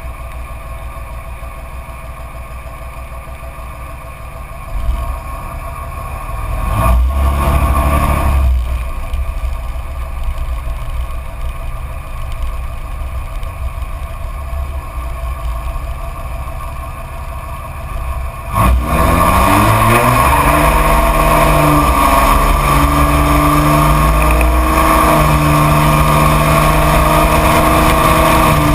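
Straight-piped Dodge Ram 2500 Cummins turbo-diesel inline-six, muffler deleted, cruising with a low exhaust rumble and a brief surge of throttle about seven seconds in. About two-thirds of the way through it goes hard on the throttle and the exhaust gets much louder, its note climbing in steps as the truck accelerates through the gears.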